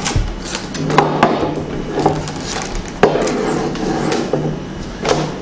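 Acrylic panels and metal rods of an LED photo light box knocking and clicking against each other and the tabletop as the frame is fitted together: a run of sharp knocks, the loudest about a second in and about three seconds in.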